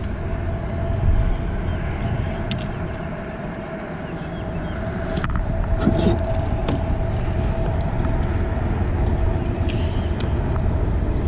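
Low, fluttering rumble of wind buffeting an action camera's microphone, with a faint steady hum under it and a few small clicks from handling the fish gripper and pliers.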